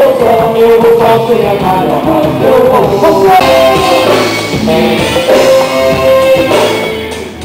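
Live Latin band music: a singer's voice over a drum kit and electric guitar.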